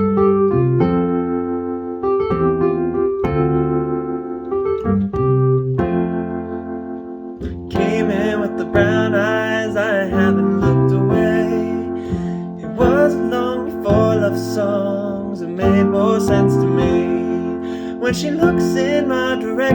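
Music: a song's piano intro, steady repeated chords, with a wavering melody line joining over the top about eight seconds in.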